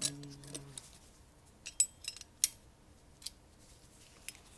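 Small steel parts of a shotgun's bolt carrier group and recoil spring clicking and clinking as they are handled and fitted together, with a quick cluster of sharp clicks about two seconds in and single clicks after.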